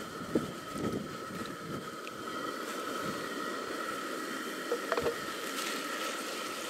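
Tinned tomatoes being tipped and scraped from a can into a frying pan on a camp stove: a few light knocks and scrapes over a steady hiss and a faint, steady high whine.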